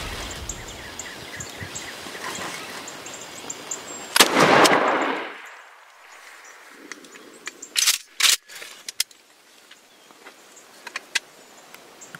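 A 20-gauge shotgun fires one shot about four seconds in, and the blast echoes away over about a second. Songbirds chirp before the shot, and two sharp knocks come a few seconds after it.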